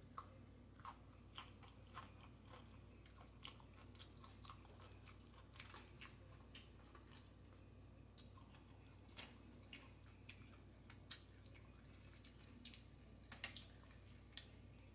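Faint close-up chewing and crunching of taco salad with tortilla chips: irregular crisp crunches and mouth clicks, about one or two a second.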